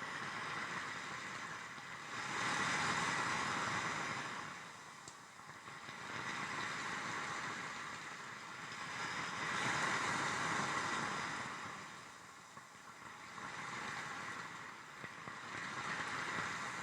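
Waves washing onto a pebble shore, a noise-reduced field recording: a hissing wash that swells and recedes about every three to four seconds.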